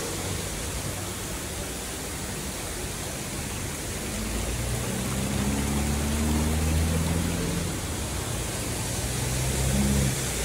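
Steady rushing of falling water from a waterfall. About halfway through a low hum joins it, and it stops shortly before the end.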